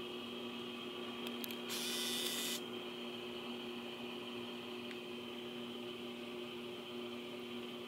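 Steady hum of several tones, with a burst of hiss lasting about a second, just under two seconds in, and a few faint clicks.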